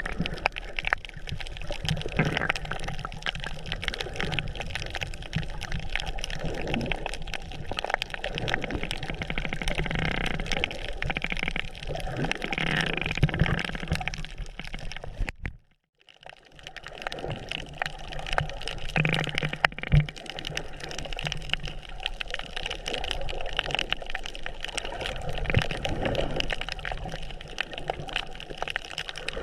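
Water sloshing and gurgling close to the microphone, cut off by a momentary silence about halfway through.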